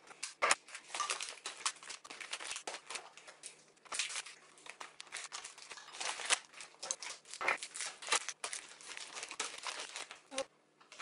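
Chocolate bars being unwrapped and broken up: packaging crinkling in irregular bursts, with pieces of chocolate snapping and clicking as they drop into a bowl.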